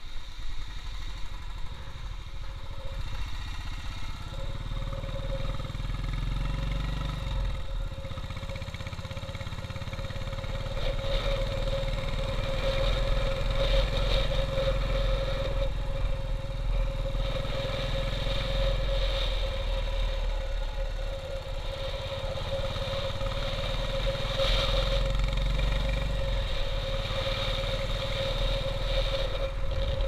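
Royal Enfield single-cylinder motorcycle engine running while being ridden. The engine note drops back briefly three times.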